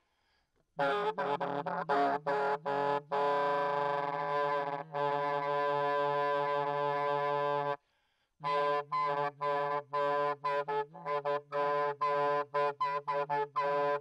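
Alto saxophone played unaccompanied: after a short break it sounds a few short notes, then holds one long steady tone. After another brief break it plays a held tone chopped into rapid stuttering repeats that come faster near the end.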